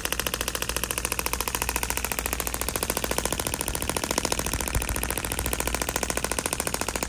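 Radial shockwave therapy handpiece firing a rapid, even train of sharp clicks as its applicator is pressed onto scar tissue on the forearm, delivering pulses to the scar.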